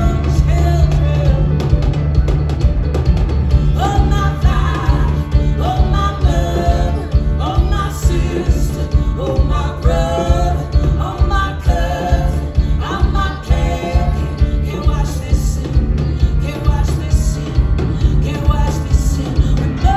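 Live band music: a woman singing with an open-back banjo over a heavy, steady pulsing bass. The singing comes in about four seconds in, pauses, and returns near the end.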